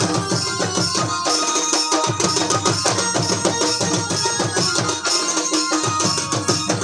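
Live Purulia jhumur folk music: several barrel drums (dhol) played by hand in a steady driving rhythm, with a held keyboard melody over them.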